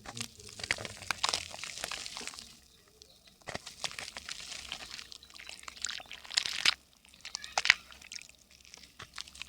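Dry yellow mud crackling and crumbling as it soaks up water and breaks apart. It comes as dense crisp crackles in bursts separated by short quiet gaps, with one sharper crack about three-quarters of the way through.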